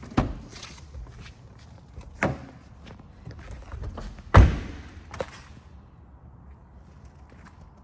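Car doors of a Jaguar XE sedan being shut and opened: a door thuds just after the start, another knock comes about two seconds in, and the loudest thud about four and a half seconds in, with a lighter knock a second later.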